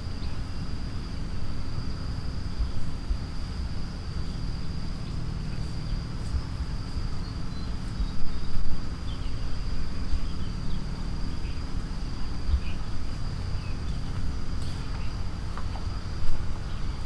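An insect trilling steadily on one high tone, over a continuous low rumble.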